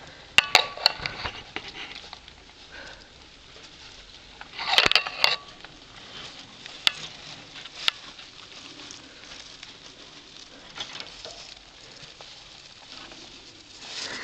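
Shredded paper and tissue bedding in a rat cage rustling and crinkling as it is disturbed. The loudest bursts come just after the start and about five seconds in, with a couple of sharp clicks near the middle.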